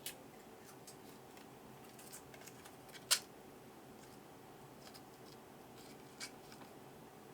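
Scattered small clicks and taps from handling small parts and tools during hand work on a scooter dashboard. One sharp click comes about three seconds in, with lighter ones near the start and about six seconds in, over a faint steady room hum.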